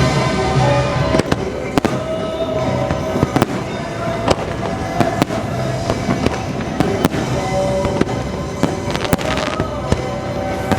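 Fireworks going off in sharp, irregular bangs about every second, over the show's loud orchestral music soundtrack with sustained notes.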